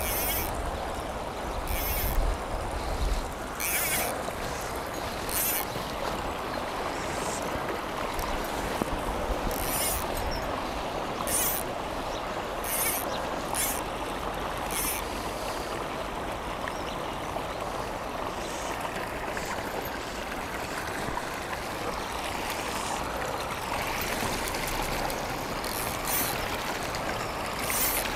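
River flowing steadily, a continuous rushing of water, with short high hisses every second or two, most often in the first half.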